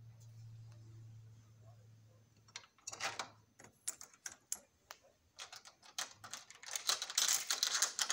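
Door hardware being worked: sharp metal clicks as a doorknob is turned, then a dense metallic rattle as a chain door lock is slid off near the end. A low steady hum sounds for the first couple of seconds and stops as the clicking begins.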